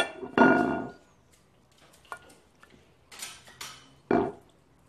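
Metal server scraping and knocking against a glass baking dish as soft lasagna is dug out and lifted. There is a clatter in the first second, two short scrapes about three seconds in, and one sharp knock just after four seconds.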